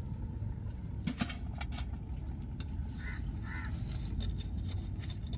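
Metal poker clinking and knocking against the stones and firewood of a wood-fired hearth as the fire under the pot is stoked, over a steady low rumble. Two short bird calls about three seconds in.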